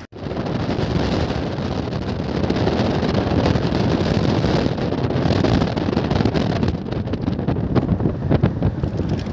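Wind rushing over a phone microphone from a moving car, together with the car's road noise: a steady rushing noise, heaviest in the low end, with crackling wind gusts from about halfway through.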